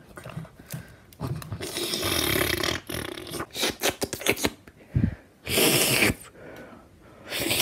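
A person making slurping drinking noises with the mouth to act out a toy drinking, in three long pulls, with small clicks and knocks from a plastic cup being handled between them.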